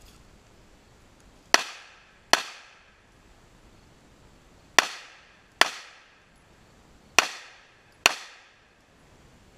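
Six pistol shots fired in three pairs, each pair under a second apart with a couple of seconds between pairs. Each shot is sharp and loud, with a short ringing tail as it dies away.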